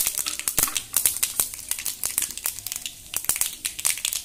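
Mustard seeds spluttering and popping in hot oil in a kadai: a dense, irregular run of sharp crackles.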